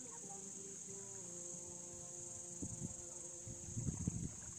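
Steady high-pitched insect chirring, with two short bursts of low rumbling thumps in the second half.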